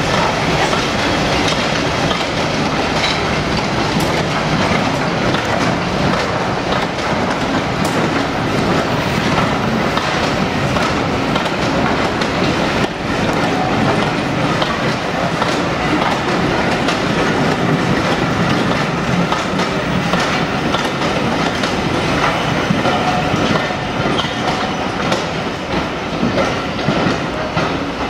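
Passenger coaches behind two Class 50 diesel locomotives rolling past close by and into a tunnel: a steady, loud clatter of wheels over the rail joints, mixed with the diesel locomotives working hard ahead in the smoky tunnel.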